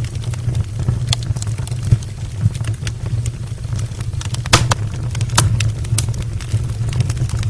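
Wood fire burning in an open brick fireplace: irregular crackles and pops over a low steady rumble, with the two sharpest pops about four and a half and five and a half seconds in.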